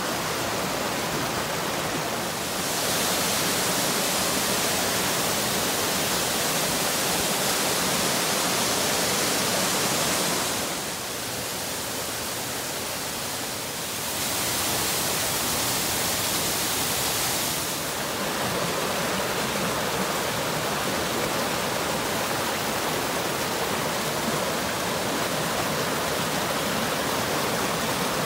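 Mountain stream rushing and cascading over boulders: a steady loud hiss of water. Its level shifts a few times, with a brief dip midway.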